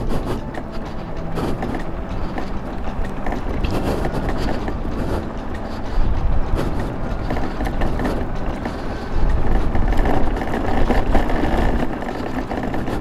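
Revolt RV400 electric motorcycle being ridden: steady wind rush and road noise with no engine note, swelling into heavier low wind buffeting on the microphone about six seconds in and again from about nine to eleven seconds.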